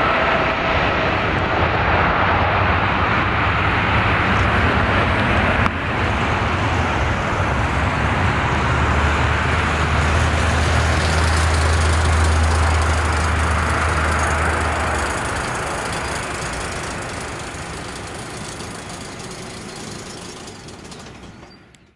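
Jet engine roar of a Boeing 737-800 on its landing roll just after touchdown, loud through the first half with a sudden small dip about six seconds in, then fading steadily away.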